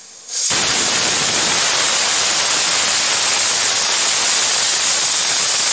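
Stovetop pressure cooker whistling: steam blasts out under the weight valve as a loud, steady hiss that starts about half a second in. This is the third whistle, the cook's cue to turn the gas down to low.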